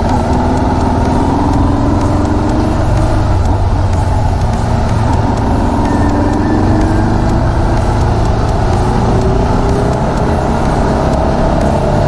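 GPX Legend Gentleman 200 motorcycle's single-cylinder engine running under way, its pitch climbing slowly as it accelerates, once in the first few seconds and again in the second half, over a steady low rumble.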